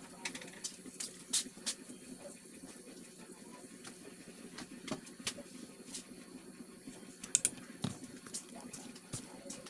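Scattered light clicks and taps at uneven intervals, from hands preparing garlic on a wooden chopping board, over a faint steady background hiss.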